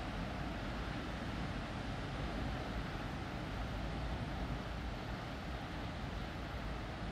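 Steady rumble and wash of heavy ocean surf breaking on a rocky shore, with wind buffeting the microphone.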